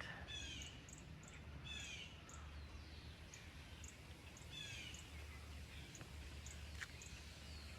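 Faint morning birdsong: small birds repeating short falling chirps and brief high, thin notes over a low steady hum.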